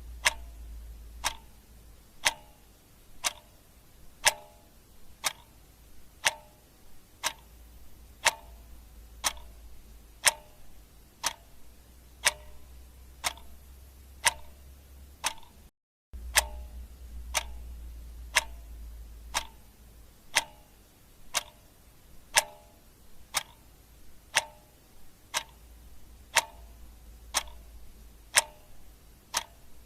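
Clock ticking steadily, about two ticks a second, alternating louder and softer in a tick-tock. The ticking cuts out for an instant about halfway through.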